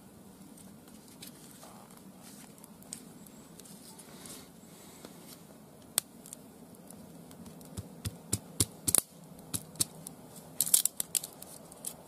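Dry kindling sticks being split with a knife and snapped by hand: one sharp crack about halfway through, then a quick run of cracks and snaps, loudest near the end.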